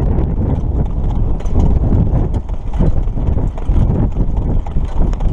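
Hooves of a Standardbred pacer striking the dirt track in a steady rhythm at speed, heard from the sulky seat right behind the horse.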